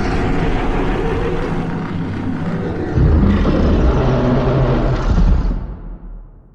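Godzilla roar sound effect: a long, harsh monster roar that gets louder and deeper about three seconds in, then fades away near the end.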